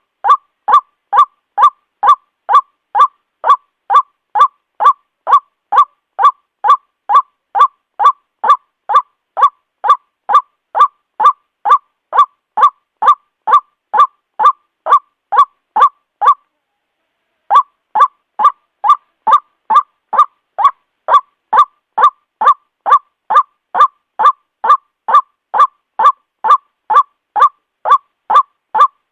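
White-breasted waterhen calling, a harsh 'ruak' note repeated about twice a second, with one pause of about a second partway through.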